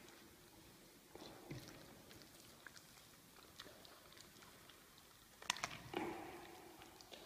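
Lion cub chewing and licking raw meat from a hand: soft wet smacks and clicks, with a few louder ones about five and a half seconds in.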